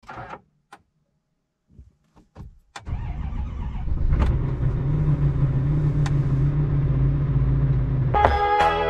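A few sharp clicks, then a vehicle engine catches about three seconds in and settles into a steady idle. Music comes in just before the end.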